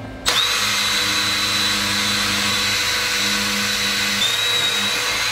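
Milwaukee cordless drill running steadily as it drills the cross-pin hole through a steel FAL gas block into the barrel's solder-filled pin slot. It starts about a third of a second in and stops at the end, with a steady high whine that dips briefly about four seconds in.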